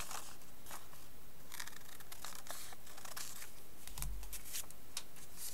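Scissors cutting a sheet of colour paper: a series of short snips with paper rustling. There is a brief low thump about four seconds in.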